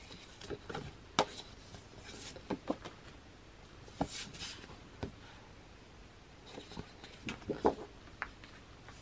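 Large printed photo sheets being handled and shuffled: scattered light taps and rustles as the sheets knock and rub against one another, with a short sliding swish about four seconds in as one sheet is drawn across the stack.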